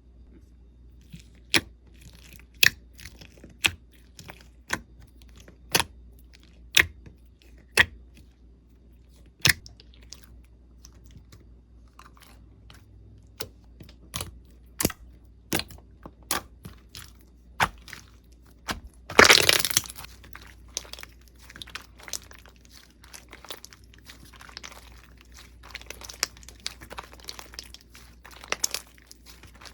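Slime being pressed and worked by hand, giving sharp single pops about once a second, then a loud crunchy crackle about two-thirds of the way through, followed by dense fine crackling.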